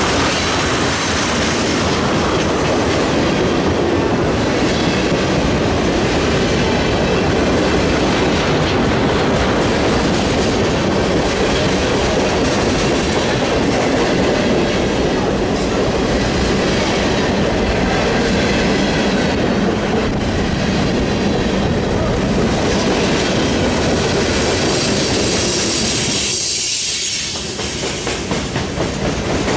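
Freight cars rolling past close by: a steady, loud rumble and clatter of steel wheels on rail joints. A thin wheel squeal sounds over the first few seconds, and near the end the noise briefly drops and the wheel clicks come through in a rhythm.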